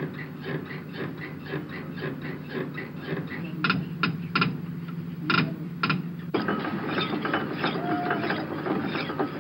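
Machine-shop machinery running with a regular clack about three times a second, broken by several sharp metallic clanks in the middle. About six seconds in the sound turns denser and busier as a metal lathe turns a shaft.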